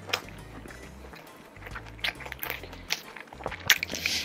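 Background music with close-up chewing of food, with a few sharp mouth clicks in the second half.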